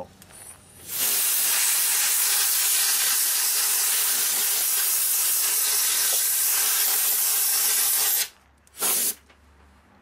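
Compressed-air blow gun on an airline hissing as it blows trapped dust out through a fridge condenser's fins: one long blast of about seven seconds, then a short second burst near the end.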